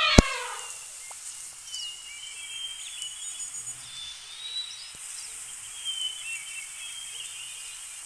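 The end of an elephant's trumpet call, falling away within the first half second, with a sharp click just after it. Then a steady outdoor ambience of faint bird chirps and whistles.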